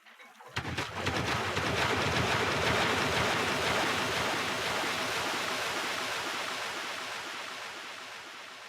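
Synthesized sci-fi sound effect: a dense, grainy rushing noise that starts abruptly about half a second in, swells over the next two seconds and then slowly fades away.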